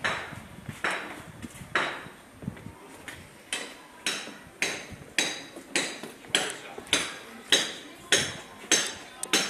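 Sharp, ringing knocks repeating about twice a second, with a short pause about two seconds in.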